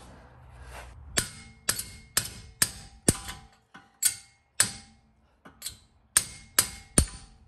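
About a dozen sharp metal-on-metal blows, roughly two a second with a short pause midway, each leaving a brief metallic ring: the offset wrench on the caliper bracket's top 17 mm bolt being struck to break the bolt loose.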